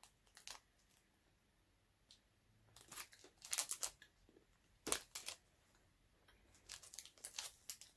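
Snack wrapper crinkling and tearing in a few short bursts, with quiet gaps between them.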